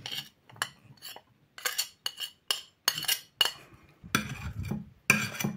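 Table knife scraping and clinking against a china plate and bowl as cubed butter is pushed off into the egg mixture: a string of short, irregular clinks and scrapes, with a duller knock about four seconds in.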